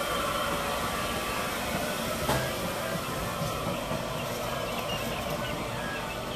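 Steady background noise inside a large store, with a single sharp knock about two seconds in and a few faint, short high chirps in the second half.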